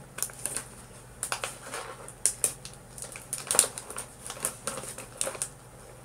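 Plastic snack packaging being handled, crinkling and crackling in irregular bursts.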